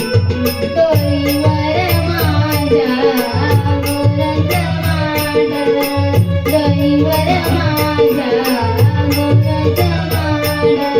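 Music of a Marathi gavlan folk song: a gliding melody over low steady accompaniment, with jingling percussion keeping a quick even beat of about three strokes a second.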